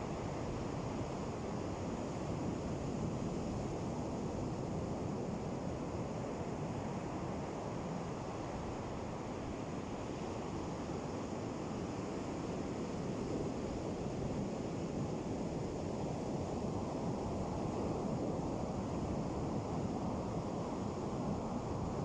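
Ocean surf on a beach: a continuous low rushing wash, with gentle swells in loudness and no sharp individual wave crashes.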